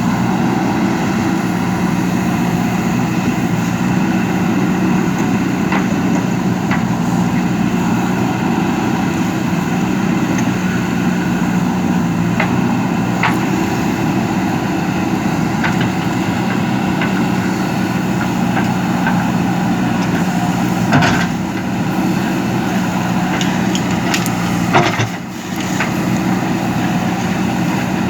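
JCB backhoe loader's diesel engine running steadily during digging, with scattered sharp knocks of the bucket and linkage, two louder ones near the end.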